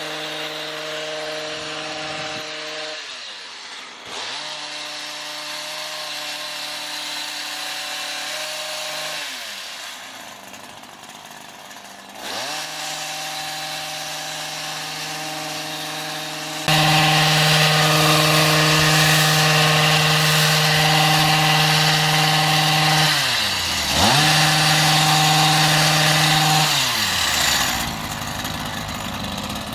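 Small petrol engine of a handheld yard power tool running at high throttle; its pitch drops away and climbs back about four times as the throttle is let off and squeezed again, and it gets much louder from about halfway through.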